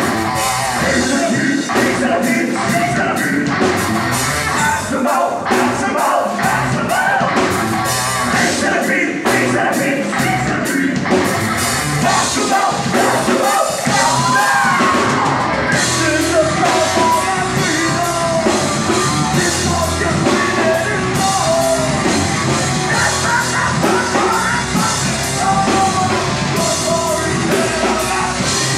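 Live horror-punk band playing loud and fast: drums, distorted guitars and bass under sung and yelled vocals.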